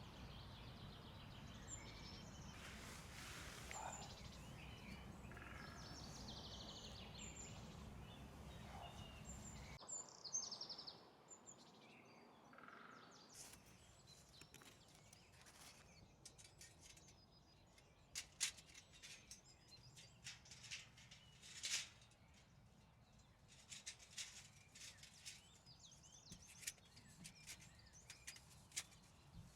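Faint outdoor ambience: small birds chirping over a low steady background hiss. The hiss drops away about ten seconds in, leaving scattered faint clicks and chirps.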